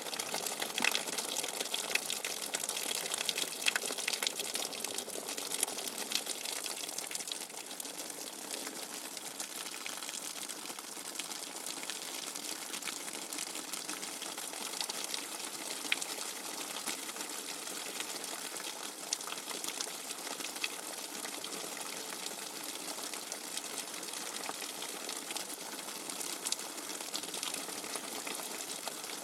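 Rainwater running in a steady gushing flow, with many small drips and splashes ticking through it; the ticks are a little busier in the first few seconds.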